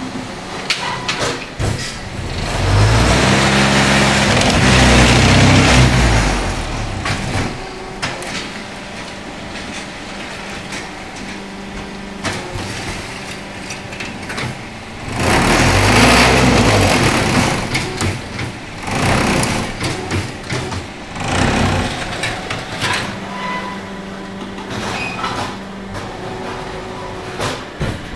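XH03-20 automatic concrete block making machine working through its cycle. Twice, about three seconds in and again about fifteen seconds in, a loud rumble rises in pitch and dies away over a few seconds, the mould-vibration stage that compacts the blocks. Between these stretches there is a steady motor hum with scattered clanks and knocks.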